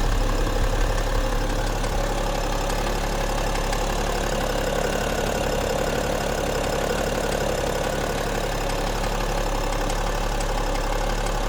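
BMW X5 E70's M57N2 straight-six turbodiesel idling steadily, with faint scattered ticks over the running. The owner hears these as extraneous knocks or clicks in the engine.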